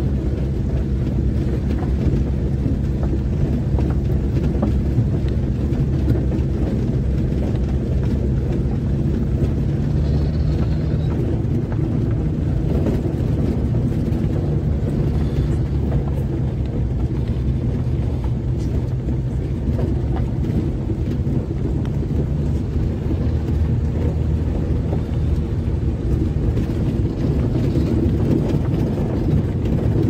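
Car engine running with tyre and road noise, heard from inside the cabin while driving steadily along an unpaved road: a continuous low drone.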